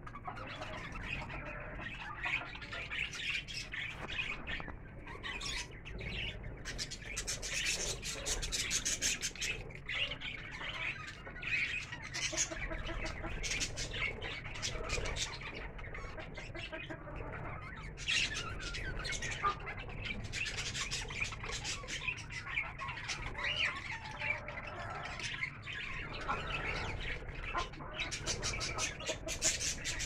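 A flock of budgerigars chattering and chirping continuously, a dense mix of warbles and quick sharp calls.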